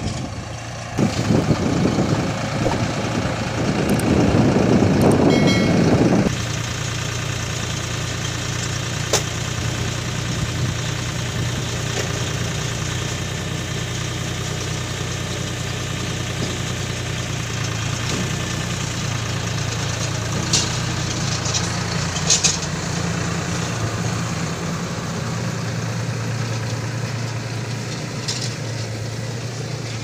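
Deutz-Fahr 4050E tractor's diesel engine running at a steady speed while pulling a round straw baler. The sound is louder and rougher for the first several seconds, then settles into a steady hum, with a few sharp clicks.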